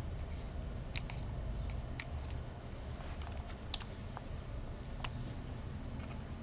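A few irregular small clicks and taps over a low steady hum, the sharpest about five seconds in.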